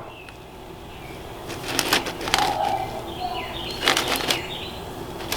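Gravel being scooped and pushed in under a PVC drain pipe to raise it for slope: two scraping bursts about two seconds apart, and a short one at the end.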